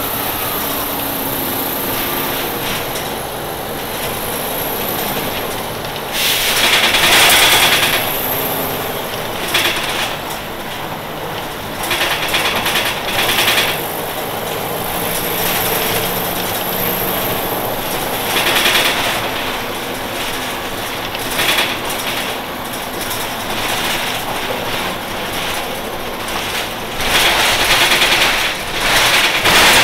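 The four-cylinder Detroit Diesel Series 50 engine of a 1996 Nova Bus RTS-06 transit bus running steadily, with louder stretches of noise lasting a second or two every several seconds.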